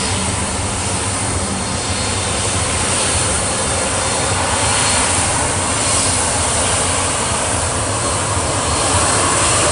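Jet engines of a Boeing 737 taxiing past: a steady rushing engine noise that grows a little louder near the end.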